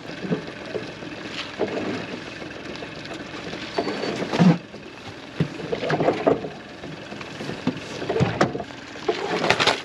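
Irregular knocks, clatter and rustling of fishing gear being handled aboard a small boat, with a louder knock about halfway through and another near the end.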